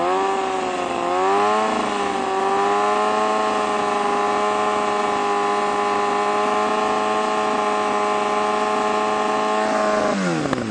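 Kawasaki Ninja ZX-6R 636's inline-four engine revved up through an M4 GP slip-on exhaust with its standard baffle and held steady at about 6,700 rpm, then let drop back toward idle near the end. It measures about 117 decibels: too loud for the street, by the owner's own reckoning.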